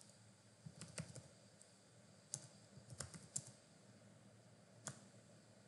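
A handful of faint keystrokes on a computer keyboard, irregularly spaced, as a word is typed.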